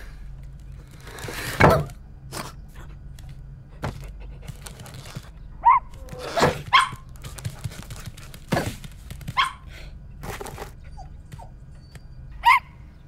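Cartoon sound effects of a small dog pushing its food bowl under a cupboard: the bowl knocks and scrapes, with several loud thunks. Between the thunks come a few short, high dog whines or yips.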